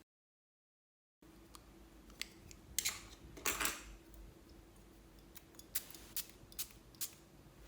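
About a second of dead silence, then a series of sharp snips and clicks, about seven in all: a longer, crisper one near the middle, then quicker single clicks toward the end.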